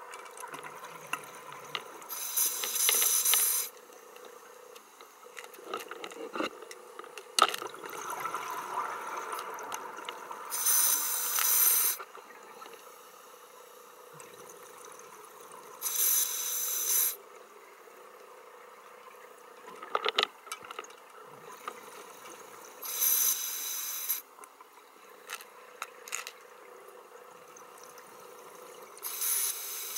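Scuba diver breathing through a regulator underwater: five gurgling rushes of exhaled bubbles, one about every six to seven seconds, with quieter intakes and a faint steady hum between them.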